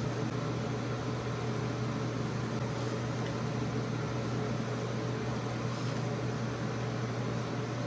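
Steady fan hum: a constant low drone with an even hiss over it, unchanging throughout.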